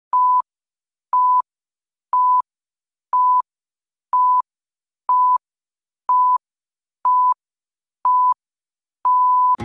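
Film-leader countdown beeps: nine short beeps of one steady pitch, one a second, then a longer final beep about nine seconds in.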